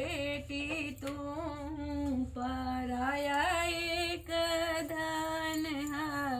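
A woman singing a folk song solo, drawing out long held notes that waver up and down without clear words.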